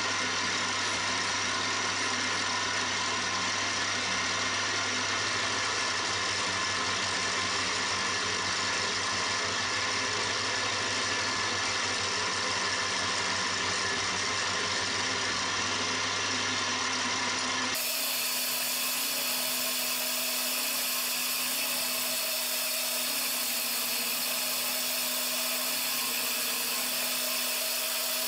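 Milling machine running with an end mill cutting a metal plate, a steady mechanical whirr of the spindle and cutter. About two-thirds of the way through the sound changes abruptly to a steadier, higher hum.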